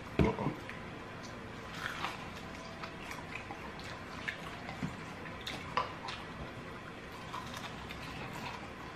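Eating sounds from chewing fried chicken wings: scattered small wet clicks and smacks over a steady low hiss.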